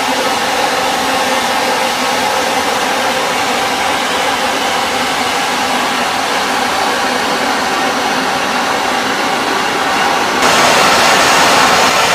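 Steam locomotive venting steam in a loud, steady hiss. It grows louder and harsher about ten seconds in.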